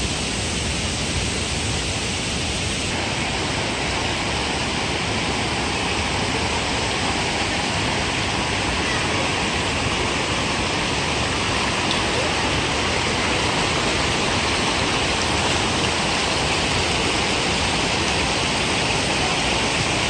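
Steady rushing of a waterfall's falling water, a continuous even roar. It turns a little brighter and hissier about three seconds in.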